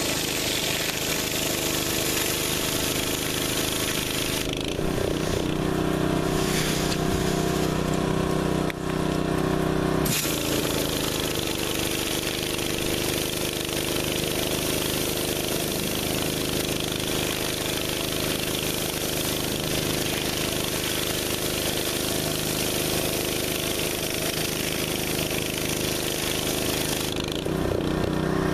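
Pressure washer engine running steadily under the hiss of a Mi-T-M 20-inch surface cleaner spraying concrete. The spray hiss thins out about four seconds in, comes back abruptly about ten seconds in, and stops near the end while the engine keeps running.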